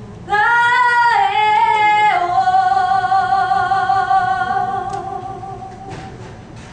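A woman singing solo into a microphone: a few sung notes, then a long held closing note with a slight vibrato that fades out about six seconds in.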